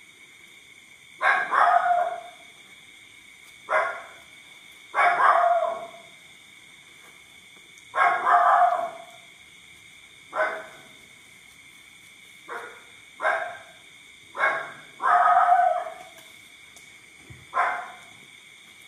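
A dog barking repeatedly, about ten barks at irregular intervals, some short and some drawn out.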